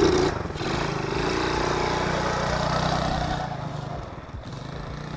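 Tao Tao small single-cylinder four-stroke ATV engine running on a little choke with a freshly replaced carburetor, revving as the quad pulls away, its sound dropping off after about three and a half seconds.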